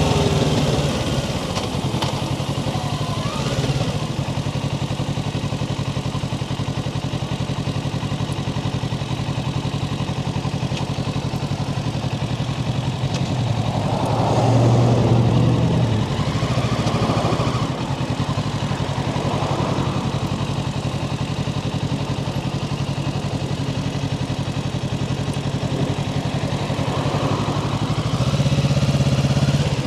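Kawasaki Ninja 650's parallel-twin engine running as the motorcycle is ridden, its pitch rising and falling several times with the throttle. It is loudest about halfway through and again near the end.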